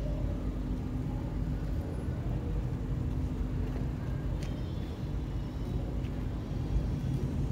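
Steady low rumble with a faint hum, and a single faint click about four and a half seconds in.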